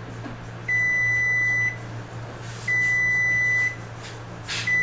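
Household electric oven's timer beeping: long, steady, high beeps of about a second each, one every two seconds, the third starting near the end, signalling that the timed bake curing the powder coat is done.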